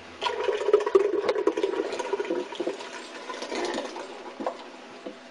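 Puréed canned tomatoes being poured from a blender jar into a pot of beef broth. The thick liquid splashes and gurgles as it pours, loudest for the first couple of seconds, then tapering off.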